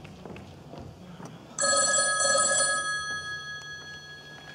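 A telephone ringing: one ring starts suddenly about a second and a half in and fades away, and the next ring begins right at the end.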